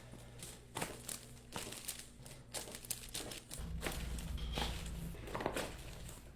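Crinkling and rustling with scattered sharp clicks and pops as a patient is handled on a chiropractic treatment table during an adjustment. A low hum joins in about halfway through.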